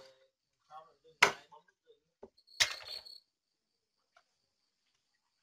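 Cleaver chopping raw chicken on a thick round wooden chopping board: sharp single chops about every second and a half, followed by a faint steady chirring of crickets.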